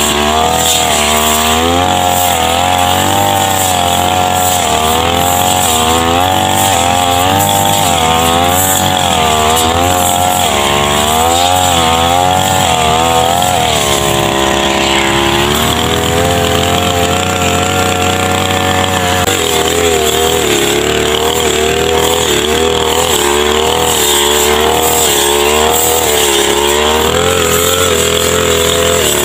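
Backpack brush cutter's small petrol engine running hard while cutting tall grass, its pitch wavering up and down. The pitch holds steady for a couple of seconds near the middle, then settles lower for the rest.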